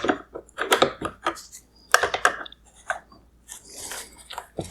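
Irregular clicks and knocks of hand tools and hard plastic parts on a car headlight assembly being taken apart, with a brief scraping rub about three and a half seconds in.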